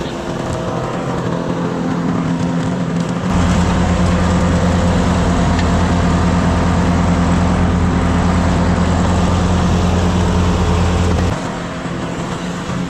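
Mini skid steer engine running steadily. About three seconds in it gets louder and heavier, as if under load, and it holds there until about eleven seconds, then eases back.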